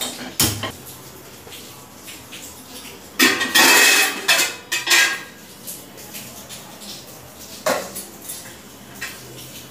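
Steel kitchen pots, bowls and utensils clanking and clattering against each other and the stovetop: a couple of sharp clanks at the start, a longer, louder clatter about three to five seconds in, and one more clank near the end.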